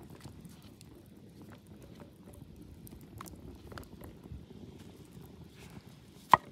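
Soft handling sounds of raw chicken being coated by hand: lifted from flour, dipped in beaten egg, then pressed into breadcrumbs, with small scattered taps and one sharp knock near the end. A low steady background rumble runs underneath.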